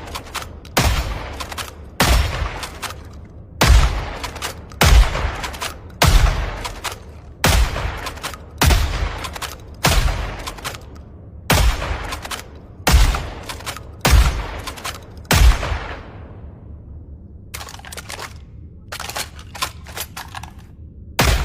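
Kel-Tec KSG pump-action 12-gauge shotgun firing about a dozen shots, one every second or so, with clatter between them. The shots stop about 16 seconds in, a few seconds of lighter clicking follow, and another shot comes near the end.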